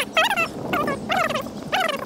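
An animal's cries: a quick series of short, high calls, each falling steeply in pitch, about four in two seconds.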